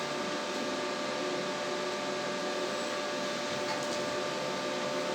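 Steady hum and hiss of a fan or motor running, with a few constant whining tones and no change in level.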